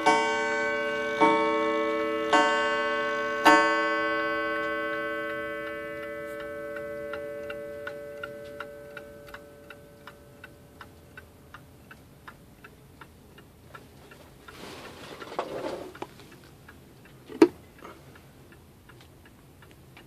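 Seth Thomas tambour mantel clock with an 89AL movement striking on its cathedral coil gong: four strikes about a second apart, each ringing on as it fades, then the movement ticking evenly at about two beats a second. Near the end there is a brief rustle, then a single sharp click.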